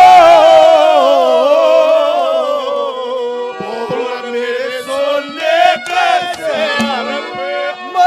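A man singing a Haryanvi ragni through a microphone and loudspeakers. He holds a long note with heavy vibrato that slides slowly downward, then the voice drops in level and breaks into shorter phrases.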